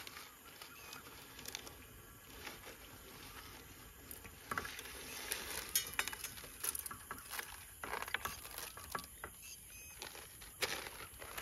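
Plastic noodle packet rustling and crinkling, and dry noodle sticks knocking as they are put into a cooking pot, heard as faint scattered clicks and rustles over a steady faint high hiss.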